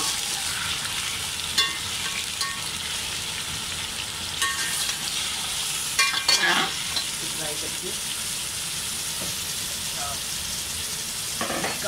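Raw chicken pieces sizzling in hot ghee and oil with browned onions, stirred with a slotted metal spoon that clinks and scrapes against the metal pot now and then. This is the first frying of the meat, which is cooked until it turns white.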